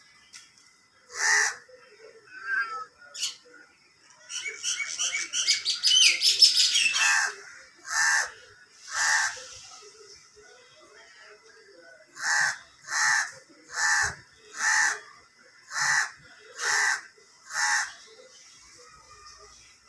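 Crow cawing repeatedly: a few scattered caws, then a fast rattling run of calls that is the loudest part, and near the end a regular series of seven caws a little under a second apart.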